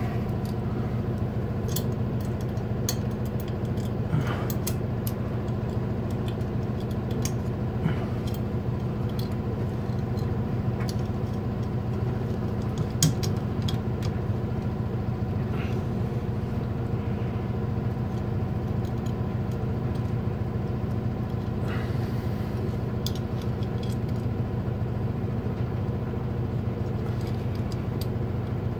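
A steady low mechanical hum, with scattered light clicks and metallic rattles of flexible metal conduit and its connector being handled.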